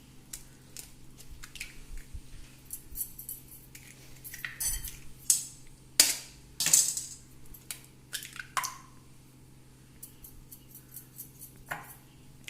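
Kitchen dishes and utensils clinking and knocking as they are handled: a string of light clinks, with the sharpest knocks about six seconds in.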